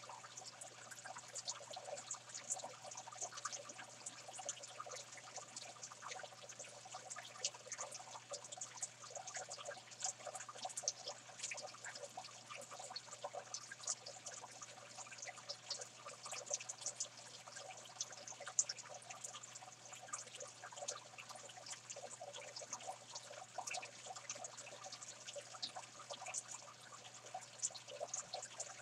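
Saltwater aquarium water trickling and splashing: an unbroken patter of small crackles and splashes over a steady low hum.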